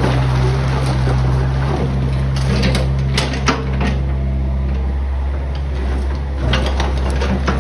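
Backhoe engine running steadily while the bucket scrapes up crushed stone, with scattered knocks and clatters of rock on steel.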